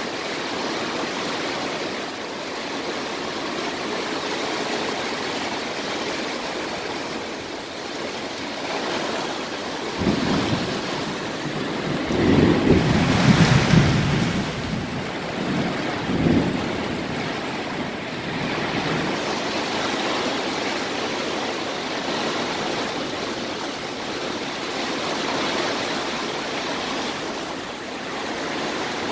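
Heavy thunderstorm rain falling steadily, a dense hiss. From about ten seconds in, a low rumbling swells for several seconds, loudest a little past the middle, then fades back into the rain.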